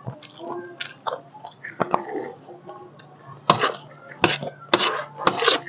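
Close-miked chewing of chatpate, a crunchy Nepali snack of puffed rice and dry noodles: wet mouth sounds and sharp crunches, which come thicker and louder in the second half.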